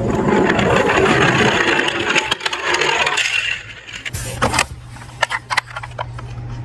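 Small metal diecast toy cars clattering against each other and a hard surface for about three seconds, then a few separate clicks and knocks.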